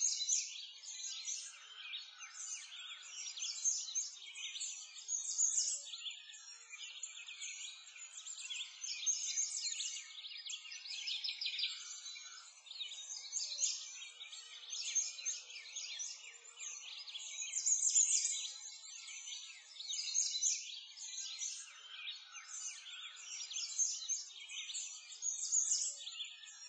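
A dense chorus of small birds chirping and twittering, all high-pitched, with no low sounds, swelling and fading continuously.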